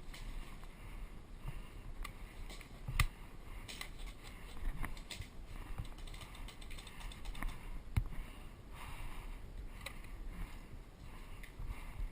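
Scattered clicks and rustling of an airsoft player's gear as he moves, with two sharper snaps, about three and eight seconds in.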